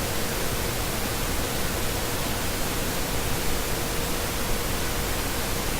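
Steady background hiss with a faint, constant hum-like tone underneath: the recording's noise floor.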